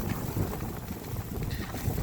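Wind buffeting the microphone in a snowstorm: an uneven, gusty low rumble.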